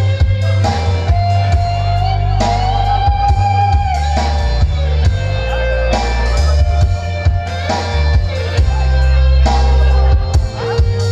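Loud music with guitar and a strong, steady bass line.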